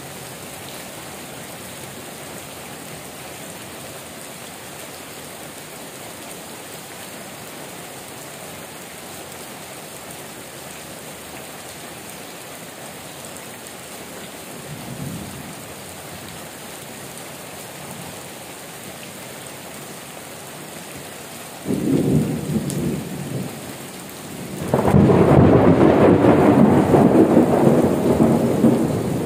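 Heavy rain falling steadily. After about twenty seconds a sudden clap of thunder breaks in, followed a few seconds later by a longer, louder rumble of thunder that lasts to the end.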